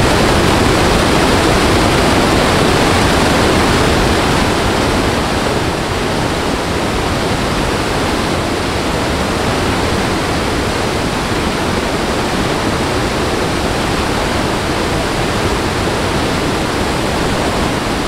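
Waterfall: a loud, steady rush of falling water that eases slightly about five seconds in.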